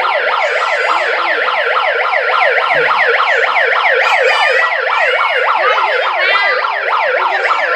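Loud toy electronic siren sounding in a fast repeating pattern of falling sweeps, several a second, without a break.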